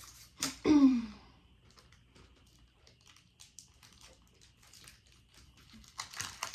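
Plastic snack packaging crinkling and clicking as it is handled and opened, with small scattered crackles and a louder crinkling burst near the end. A short pitched sound that falls in pitch is the loudest moment, just under a second in.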